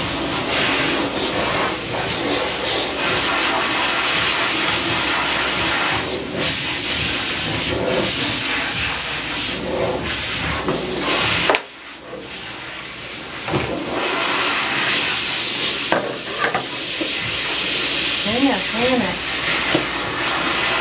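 A loud, steady hissing rush of air-like noise. It drops away sharply for a moment about twelve seconds in, and a few brief wavering pitched sounds come near the end.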